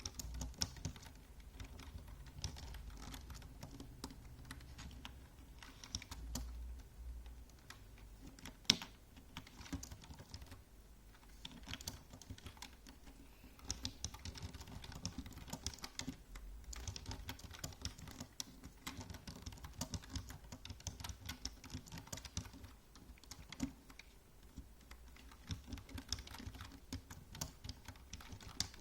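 Typing on a computer keyboard: a steady run of quick, uneven key clicks with short pauses here and there.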